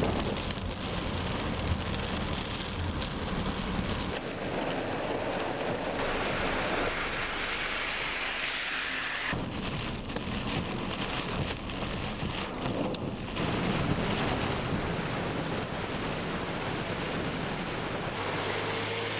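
Heavy rain pouring down, heard in several short recordings cut together, so the sound shifts abruptly a few times.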